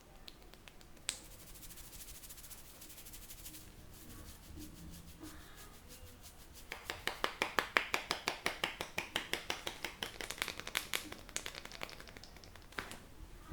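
A quick, even run of sharp clicks, about five a second, for several seconds in the second half. Earlier there is a single click and a fainter, faster patter of clicks.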